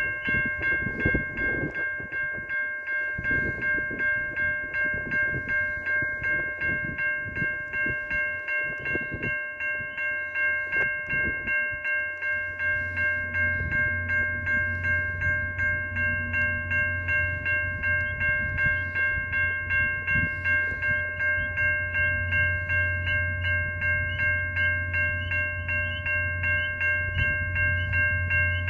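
A railway level-crossing warning bell rings on and on in a fast, even rhythm. Its ringing is high and metallic, and it sounds while the crossing lights flash for a stopped passenger train. From about twelve seconds in, a low steady hum joins underneath.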